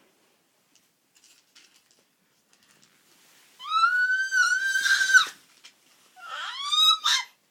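A baby making weird high-pitched vocal noises: two long cries, the first starting about three and a half seconds in and held at a steady pitch, the second near the end rising in pitch.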